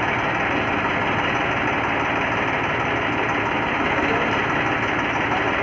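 Massey Ferguson tractor's diesel engine idling steadily.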